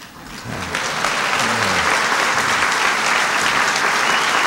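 Audience applauding, swelling in over the first second and then holding steady.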